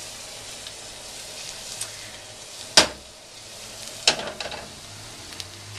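Minced garlic sizzling gently in olive oil in a wok, a steady soft frying hiss. A sharp knock comes a little under three seconds in, and another about a second later.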